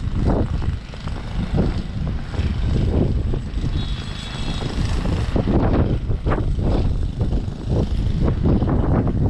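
Blizzard wind buffeting the camera microphone, a loud, gusty low rumble.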